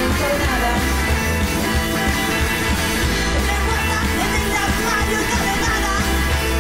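Indie rock band playing live through a festival PA: electric guitars, drums and keyboard in a loud, steady instrumental stretch of the song.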